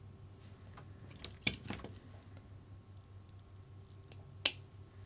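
Small clicks and taps of tiny metal parts being handled while an E-clip is fitted onto an RC car shock shaft. A few light clicks come a little over a second in, and one sharp click comes about four and a half seconds in.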